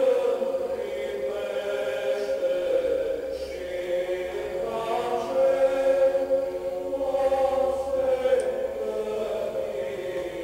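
Choral chant sung over a steady held drone note, with the melody moving above it.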